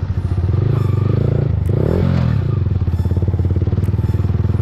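Yamaha R15M's single-cylinder engine running through an aftermarket Akrapovic exhaust while riding, its note briefly rising and falling about two seconds in.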